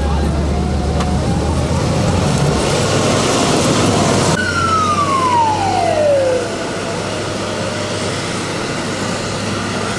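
Motor grader's diesel engine running loud as the snow-clearing machine passes close by. About four seconds in the sound drops abruptly to a quieter, steady engine hum, over which one siren-like whine falls in pitch over about two seconds.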